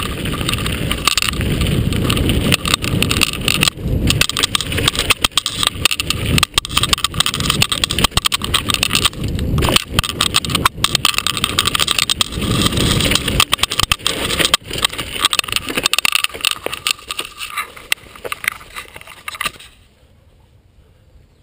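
Mountain bike riding down a dirt singletrack, heard from a camera on the rider: steady rumble of tyres and wind with frequent clatter and knocks from the bike over the rough trail. The riding noise cuts off abruptly near the end, leaving only a low background.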